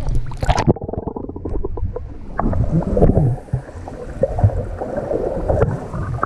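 Pool water splashing as the camera dips below the surface about half a second in. After that comes muffled underwater sound: low, irregular rumbling and gurgling of water moving around the camera, with scattered knocks.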